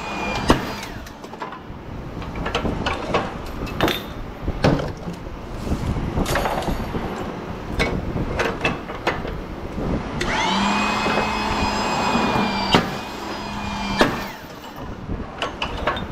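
Metal fixture parts being knocked and pried apart, a run of sharp clanks and knocks. About ten seconds in, a small electric motor spins up and runs at a steady pitch for about three and a half seconds, then stops.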